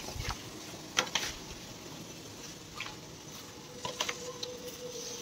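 Handheld spark-spraying firework burning with a steady hiss and scattered sharp crackling pops; the loudest pop comes about a second in.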